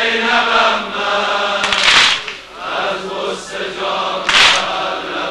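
Male voices chanting a Persian Shia mourning lament (noha) in long held notes, with a short hiss about every two and a half seconds.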